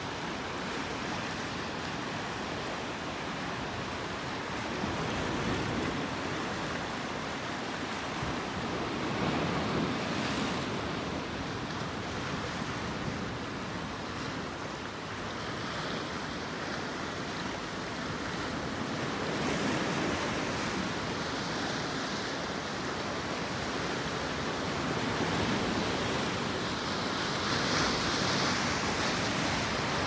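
Ocean surf washing in over and around shoreline rocks: a steady rush of water that swells and ebbs in slow surges every several seconds.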